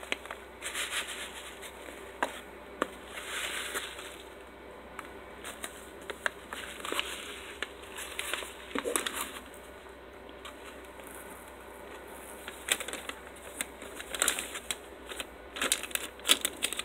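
Crinkling and rustling of a foil seed pouch being handled and turned over, with scattered sharp crackles and clicks, busiest near the end.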